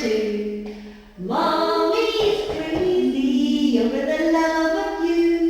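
A voice singing long, wordless held notes. The note fades to a short break about a second in, then a new note rises and steps upward through several sustained pitches.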